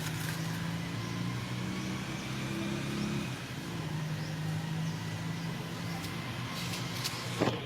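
A motor vehicle's engine running steadily, its low hum changing slightly about three seconds in, with a sharp click near the end.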